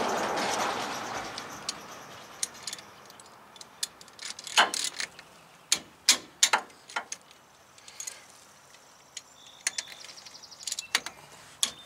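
Ratchet and socket working the 13 mm brake caliper bolts on a truck's front brake: scattered sharp metallic clicks and taps, with a quick run of ratchet clicks near the end. A rush of noise fades away over the first couple of seconds.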